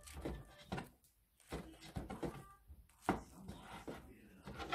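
Chef's knife chopping a rolled omelette into strips, knocking down onto a plastic cutting board at uneven intervals, roughly two cuts a second with a brief pause about a second in.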